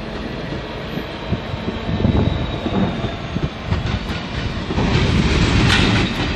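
A train moving through the station, its rumble growing louder, with wheels clicking and knocking over rail joints.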